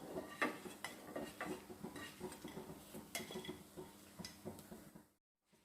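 A metal utensil scraping and clinking against a frying pan as fried bread cubes are scooped out of the ghee and moved to a dish: a run of small, irregular clicks and scrapes that cuts off suddenly near the end.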